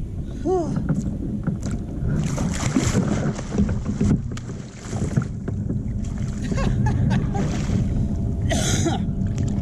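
A hooked blue catfish thrashing and splashing at the surface beside a kayak as it is played on rod and reel, with water sloshing and small clicks and knocks, and a bigger splash near the end. A short voiced exclamation comes about half a second in.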